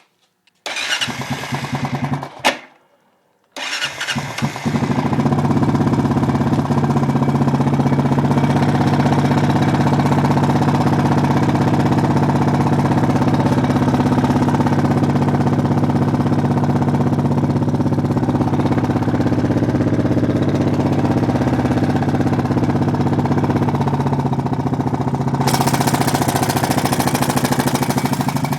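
Honda Foreman ATV's single-cylinder four-stroke engine cranked by its electric starter: the first try stops short, the second catches about four seconds in and settles into a steady idle. The engine has a persistent ticking that correctly adjusted valves have not cured, which the owner suspects comes from the timing chain.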